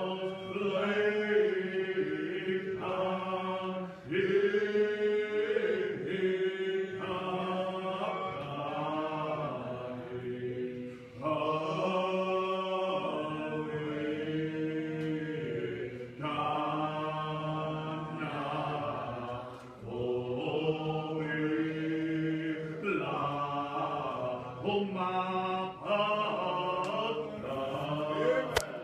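A congregation singing a hymn in the Muscogee Creek language, voices together in long held phrases with short breaks every few seconds.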